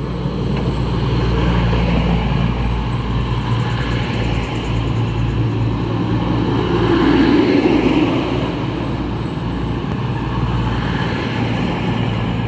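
CrossCountry Class 220 Voyager diesel multiple unit running into the platform at close range: the steady hum of its underfloor diesel engines over wheel and rail rumble, swelling loudest about seven or eight seconds in.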